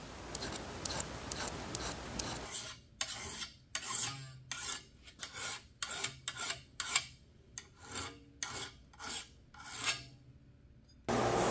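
A file drawn in repeated strokes across a steel part of a Stanley Bailey No. 5 hand plane, about two rasping strokes a second, stopping shortly before the end.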